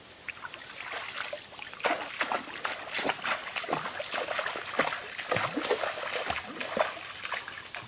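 River water splashing and sloshing in quick, irregular splashes.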